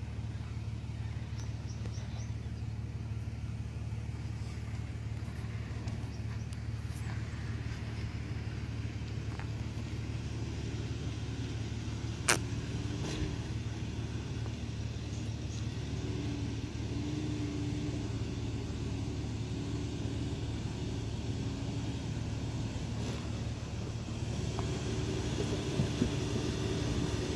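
A 4WD ute's engine running steadily at low revs while crawling off-road, with one sharp knock about twelve seconds in and a faint low whine that comes and goes in the second half.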